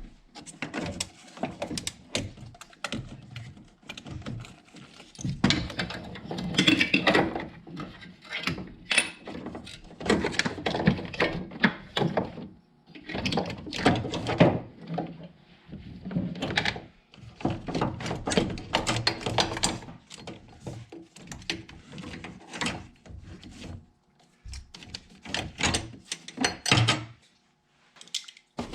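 Hands working a vehicle's negative battery cable free: irregular clunks, clicks and scraping as the cable and its plastic clips are handled and pulled loose.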